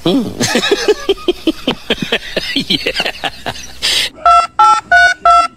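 A cat chattering in quick, rapid calls that each fall in pitch. About four seconds in a brief rush of noise cuts in, followed by four short touch-tone telephone keypad beeps at about three a second.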